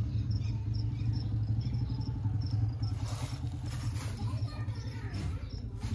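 An engine running steadily at idle, a low even pulsing hum, with crickets chirping faintly and a brief rustle about three seconds in.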